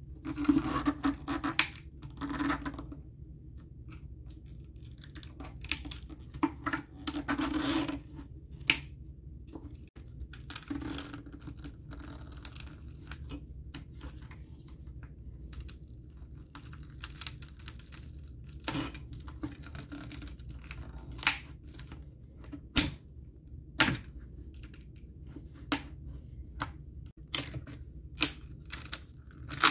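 A thin metal pick scraping, clicking and tearing as it pries the base plate off a 2009 Apple aluminium keyboard, in scattered short bursts over a steady low hum.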